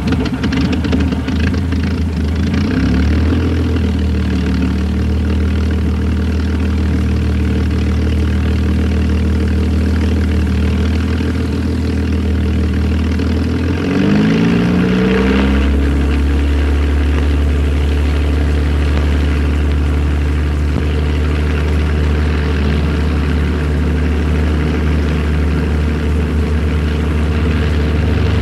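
A large engine running steadily, with a low drone and its pitch shifting briefly about three seconds in and again midway.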